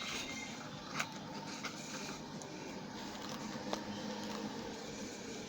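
Quiet room hiss with a few faint light clicks, one about a second in and another near four seconds in.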